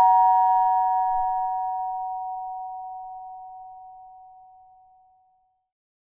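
Two-tone ding-dong doorbell chime ringing out, its higher and lower tones slowly fading away over about five seconds.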